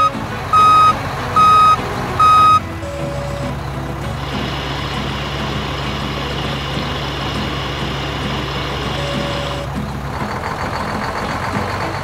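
Truck sound effects: three loud reversing beeps in the first few seconds, then a truck engine running steadily with a hiss on top, stopping about ten seconds in.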